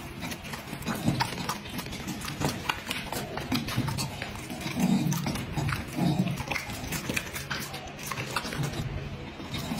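A dog chewing pieces of pineapple and smacking its lips, a dense run of small wet clicks and crunches.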